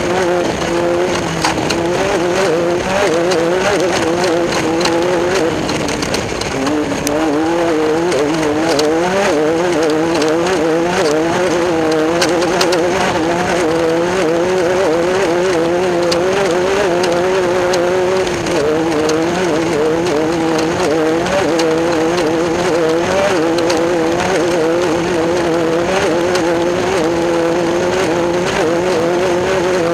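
Class 10 off-road race car's engine running hard and steadily, its pitch wavering up and down, dipping about six seconds in and climbing back. Continuous road noise and frequent small knocks run beneath it.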